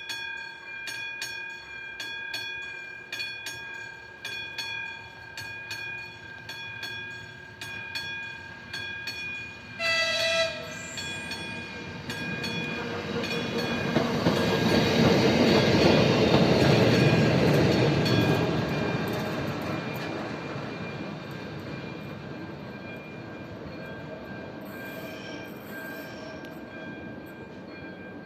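Level-crossing warning bell ringing about twice a second. About ten seconds in an electric locomotive gives a short horn blast, then passes over the crossing, its rumble building to a peak and fading away while the crossing bell keeps ringing.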